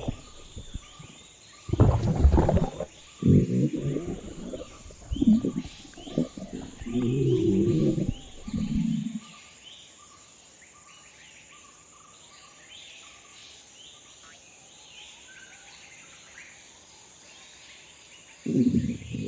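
Stomach gurgling sound effects, loud and irregular for about the first nine seconds, over a jungle ambience of chirping birds and a steady high insect drone. The gurgling stops about halfway, leaving the birds, and returns briefly near the end.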